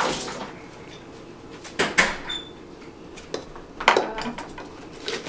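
Kitchen clatter: a few sharp knocks and clinks of a plastic cup and utensils being handled on a countertop, spaced about two seconds apart.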